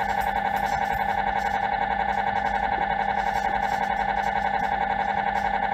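MRI scanner's gradient coils sounding during a scan sequence: a steady, loud, buzzing tone that pulses rapidly and evenly several times a second.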